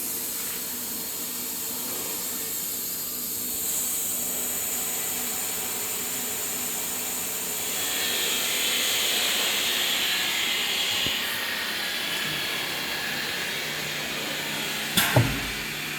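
Automatic-tool-change CNC router running, a steady machine hum and hiss as it moves between tool-height measurements, with the higher noise shifting in pitch partway through. A sharp click comes about fifteen seconds in.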